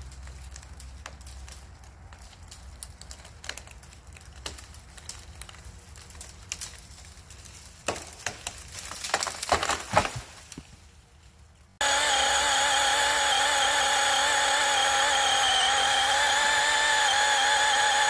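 A cut tree giving scattered cracks and snaps, then crashing down through the branches with loud breaking sounds about eight to ten seconds in. After an abrupt cut, a DeWalt 12-inch 20-volt cordless chainsaw runs steadily as it saws through a downed log.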